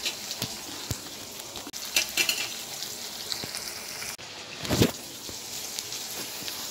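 Diced potatoes and ridge gourd frying in mustard oil in a metal kadai: a steady sizzle, with a few sharp clicks and knocks, the loudest a little past halfway.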